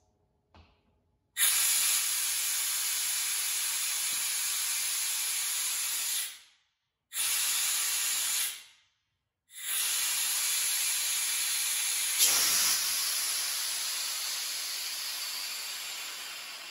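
Compressed air and condensation hissing out of an Ingersoll Rand 60-gallon upright air compressor's tank through a newly fitted quarter-inch ball-valve drain. The valve is opened three times: a long blast, a short one, then a longer one that tapers off near the end.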